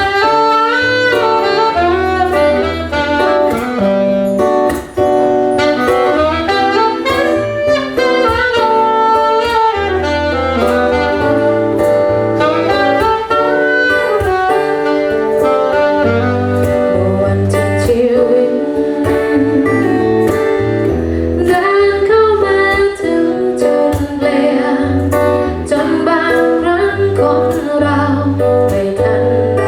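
A small band playing a song live: a saxophone carries the melody over a bass line and drums.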